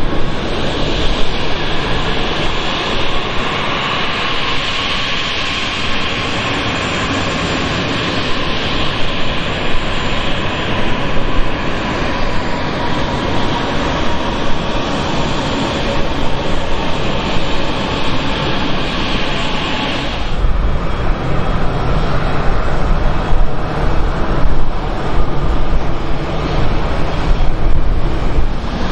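Jet airliner's turbofan engines at taxi power passing close, a steady whine over a broad rush. About two-thirds in the sound cuts to a deeper, lower rumble of more distant jet engines.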